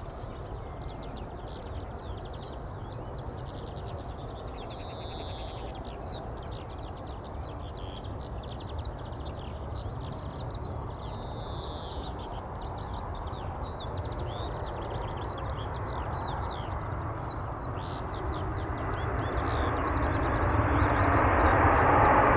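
Birds chirping over a low wind rumble, while the engine noise of an Airbus A321neo approaching to land rises steadily over the last few seconds and becomes the loudest sound.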